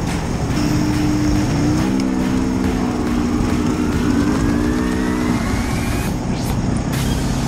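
Polaris ACE side-by-side's engine running hard under throttle, its pitch rising and falling as it is driven through mud and water. A thin whine climbs steadily for a couple of seconds in the middle.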